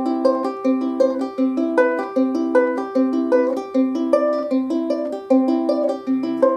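Soprano ukulele fingerpicked in a steady PIMA arpeggio (thumb, index, middle, ring, from the fourth string down to the first) over a C major shape. The notes are plucked one at a time in an even, unbroken stream, and the top note shifts as one fretting finger moves between frets.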